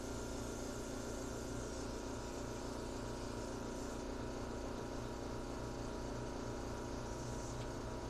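Air compressor motor running steadily, with a constant hum and hiss.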